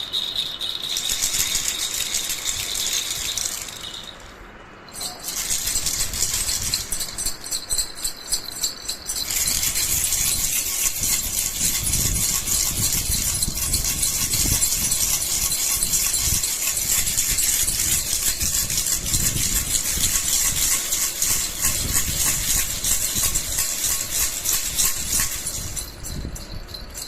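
Baby rattle (jhunjhuna) shaken fast, its beads rattling in a dense run of clicks. The shaking stops briefly about four to five seconds in, then goes on without a break.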